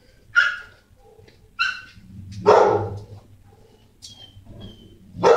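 A dog barking: three sharp barks about a second apart, a pause, then a fourth bark near the end.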